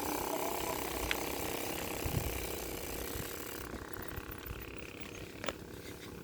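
Bicycle rear freewheel hub clicking rapidly as the bike coasts, with road and wind noise, getting quieter after about the middle.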